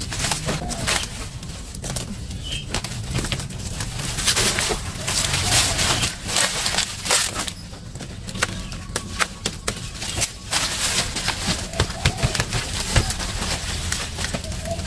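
Irregular rustling and crackling of leafy corn stalks being cut and pulled out. A dove coos faintly a few times in the background.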